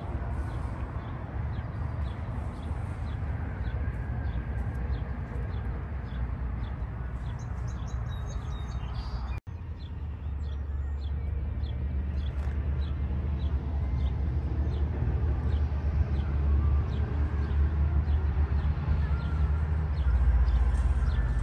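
Outdoor ambience: a low wind rumble on the microphone, footsteps crunching on gravel in an even walking rhythm, and birds chirping. The sound breaks off for a moment about nine seconds in, then the rumble grows stronger.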